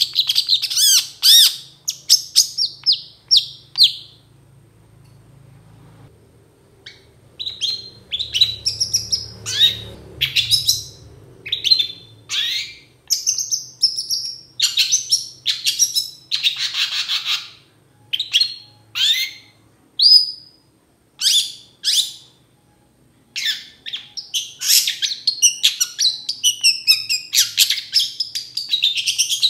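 Long-tailed shrike (cendet) singing: runs of sharp, high chirps and harsh notes in quick bursts. It pauses for a few seconds early in the run and again later, then breaks into a dense, rapid string of notes near the end.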